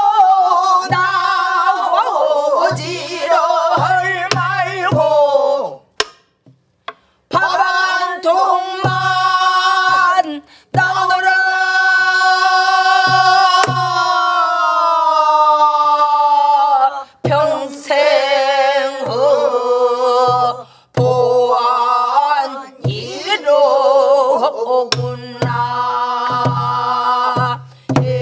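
A group of men and women singing pansori together in the slow jinyang rhythm, with long held, wavering notes. The sung line is punctuated by low strokes on a buk barrel drum at uneven intervals. The singing breaks off briefly about six seconds in.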